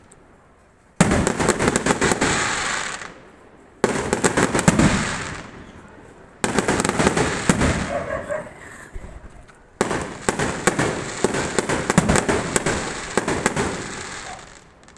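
Fireworks going off in four separate volleys of rapid crackling pops, each starting suddenly and fading away over two to three seconds.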